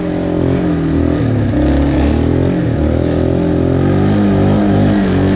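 ATV engine running under throttle, its speed rising and falling.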